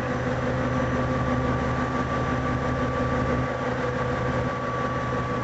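Steady engine hum, running at an even idle with a few fixed tones.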